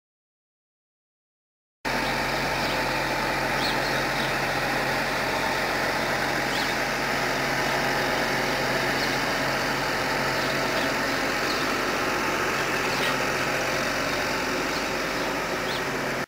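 Silence for about two seconds, then a large farm tractor's engine running steadily as it drives along, a constant low hum under a steady wash of noise.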